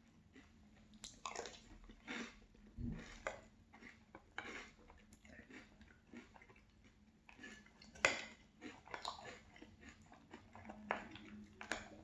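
A person chewing a mouthful of crunchy Boo Berry cereal with milk: irregular crunches with the odd clink of a spoon against the bowl, the sharpest click about eight seconds in.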